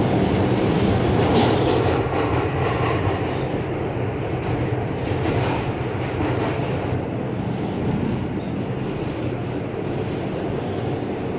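Bombardier-built R142 subway car heard from inside the car while running through the tunnel: a steady, loud rumble of wheels on rail with a low hum underneath, easing slightly after the first couple of seconds.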